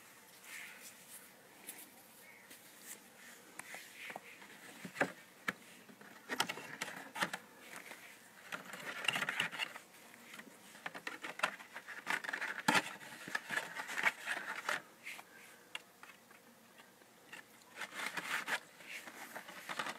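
Hands handling a cardboard box and a plastic DVD case: scattered scrapes, rustles and light clicks, in irregular spells.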